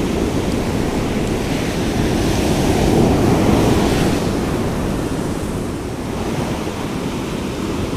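Ocean surf breaking and washing up the sand, with wind buffeting the microphone. The wash swells to its loudest about three seconds in, then eases.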